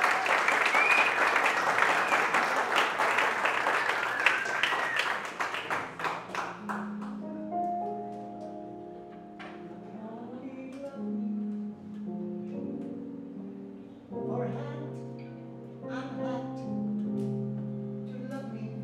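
Audience applauding and cheering, fading out after about six seconds as a small band begins a slow instrumental intro of long held notes; lower bass notes come in about two-thirds of the way through.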